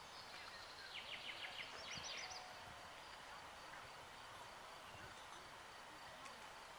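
Faint outdoor ambience with a short bird trill about a second in: a quick run of repeated rising chirps lasting just over a second.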